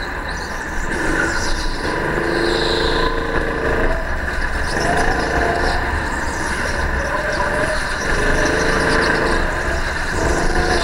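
Go-kart's motor running hard lap after lap, its pitch rising as it accelerates and dropping away several times, over a steady low rumble.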